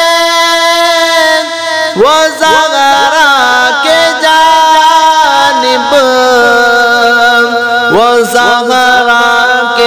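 A man's solo voice singing an Urdu devotional song in praise of Husain. He holds one long steady note, then about two seconds in breaks into slow ornamented runs that slide up and down in pitch.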